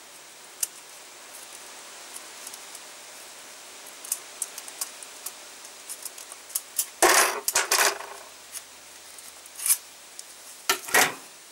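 Light metallic ticks and clinks of piston-ring pliers working a piston ring, the oil control ring, off its groove. A louder clatter of metal comes about seven seconds in, and there are more clinks near the end.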